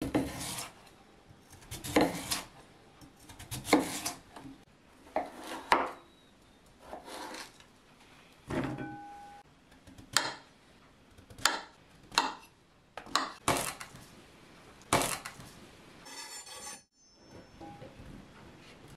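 Chef's knife slicing through raw sweet potato and then button mushrooms, each cut ending in a knock on a bamboo cutting board, about one every one to two seconds. Near the end, the cut pieces are scraped off the board into a glass bowl.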